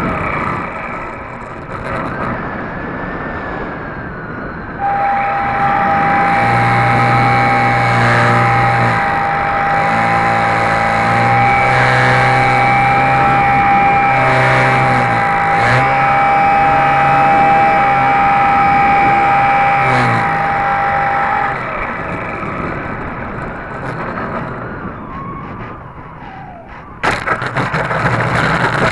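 Electric motor and propeller of a HobbyZone Super Cub RC plane in flight, heard from the wing: a steady motor whine with a high, held tone through the middle. It is quieter for a few seconds early on and again later, then turns suddenly louder near the end.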